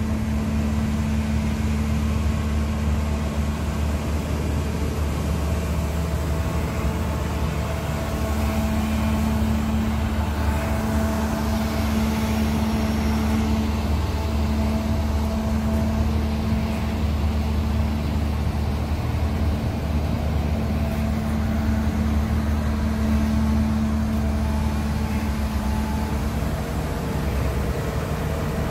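The Cummins QSC diesel engine of a Hyundai R320LC-9 33-tonne crawler excavator running steadily at constant speed.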